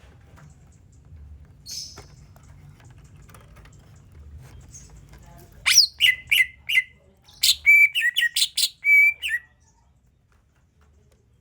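Cucak ijo (green leafbird) singing: after a quiet start, a rapid series of loud whistled notes, many dropping steeply in pitch, lasting about four seconds and then stopping.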